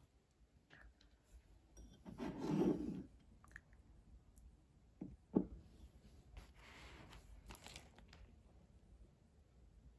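Faint handling noises of things being moved about on a wooden tray: a rustle about two seconds in, two sharp knocks about five seconds in, and another rustle a couple of seconds later.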